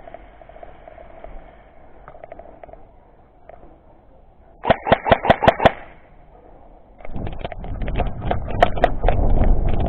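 Airsoft gun firing a short full-auto burst of about eight shots in quick succession, about five seconds in. From about seven seconds on, a steady low rumble with scattered irregular clicks and knocks.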